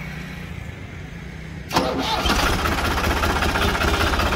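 Euro Ford 4560 tractor's diesel engine being started: it catches suddenly a little under two seconds in, then runs steadily at idle.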